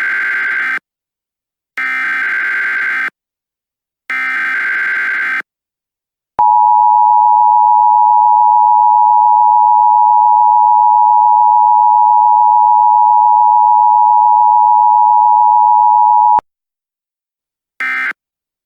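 Emergency Alert System tones. First come three harsh, warbling digital data bursts of about a second each, the EAS header. Then the EAS attention signal sounds about six seconds in: a steady two-tone beep held for about ten seconds that cuts off sharply. Near the end, a short chirp of the same data tone begins.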